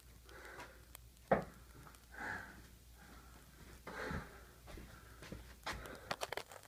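A single sharp smack of a tennis ball being hit, about a second and a half in, between heavy breaths. Near the end come a run of small clicks and rustles as the phone is picked up and handled close to the microphone.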